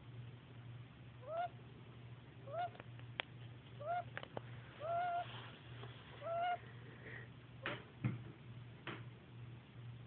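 Fledgling woodpecker making a really sad little noise while sleeping: five short calls, each rising and then held briefly, about a second apart. A few sharp clicks follow near the end, over a low steady hum.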